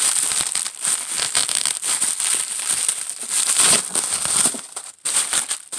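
Packaging crinkling and crackling continuously as a boxed third brake light is unwrapped by hand.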